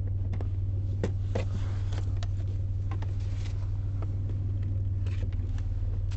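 2003 Ford Escape engine idling steadily with an even low hum, now running smoothly after its misfire was repaired. A few light clicks and knocks of handling sound over it.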